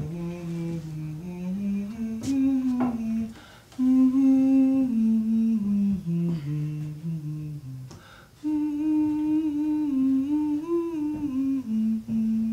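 A voice humming a slow, wordless melody in long held notes that step up and down, breaking off twice briefly for breath.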